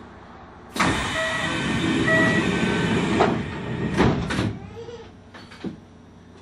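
Commuter train's passenger doors closing: a burst of air hiss from the door mechanism starts about a second in, with two short chime beeps, then a few knocks as the doors shut.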